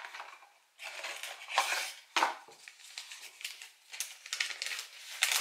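A small cardboard product box being opened and handled, and a folded paper instruction leaflet pulled out of it: irregular scrapes and rustles of card and paper that come and go, loudest a little under two seconds in.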